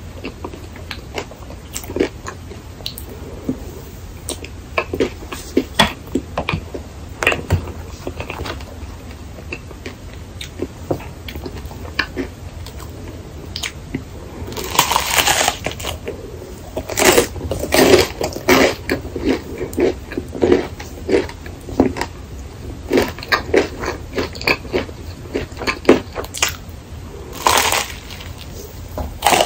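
Close-miked eating sounds. A utensil scrapes soft whipped cream on a waffle. Then a crisp rice waffle sandwiched with whipped cream is squeezed, bitten and chewed, with scattered crunches and clicks that grow denser and louder in the second half.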